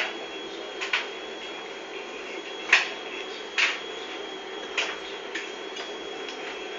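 A cat's claws and paws tapping and skittering on a tiled floor as it pounces after a laser dot, in sharp irregular clicks, the loudest a little under 3 seconds in. A steady low hum runs underneath.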